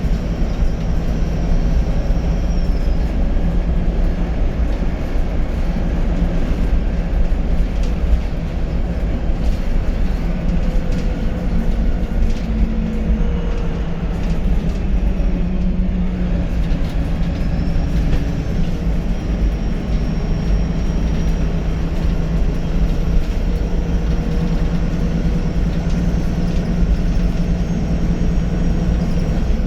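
VDL SB200 bus's diesel engine running under way with a steady low drone, a faint high turbo whistle rising and falling over it, plainest near the start and through the second half.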